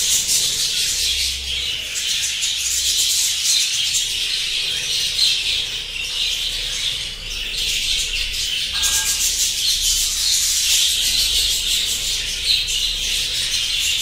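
A colony of budgerigars chattering all together: a dense, unbroken mass of high chirps from many birds at once.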